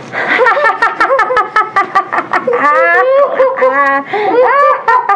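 Children laughing in an acted, staged way: a quick run of ha-ha-ha laughs, with drawn-out, wavering laughs about three seconds in.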